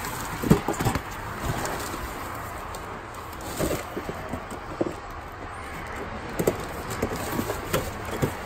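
Rummaging in a cardboard box: crumpled newspaper rustling, with scattered knocks and clunks as a metal box is shifted and lifted out.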